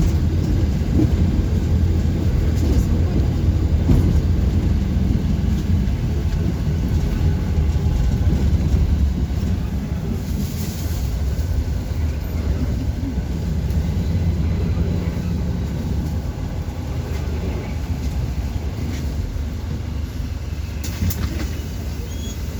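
City bus in motion, heard from inside: a steady low rumble of engine and road noise with light rattles, and a brief hiss about ten seconds in.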